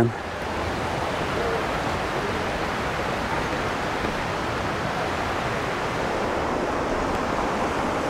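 Steady rush of falling water from the lower falls of the Gooseberry River, an even, unbroken noise.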